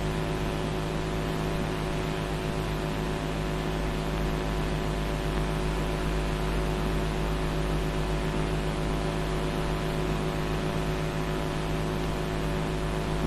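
Steady electrical hum with a constant hiss underneath, unchanging throughout, with no other activity audible.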